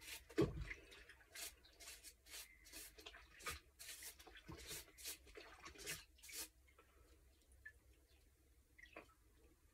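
Faint splashing, dripping and brushing as a suppressor baffle is scrubbed by hand in a bucket of hot soapy water, in short irregular sounds. They thin out about six and a half seconds in.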